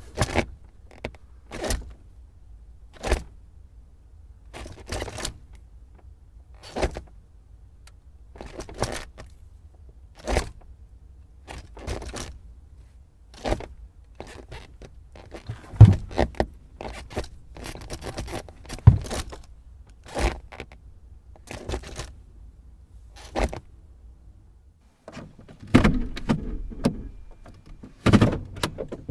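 Car gear lever being shifted through the gears: a series of short clunks and clicks about every one to two seconds over a low steady hum. The hum stops about 25 seconds in, and a quicker run of louder clunks follows near the end.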